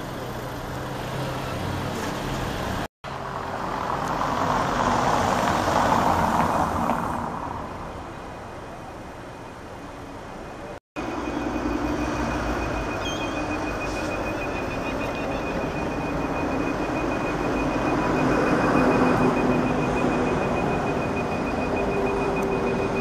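Street traffic: road vehicles passing, the noise swelling and fading twice. The sound drops out for an instant twice, and a faint steady high tone runs through the second half.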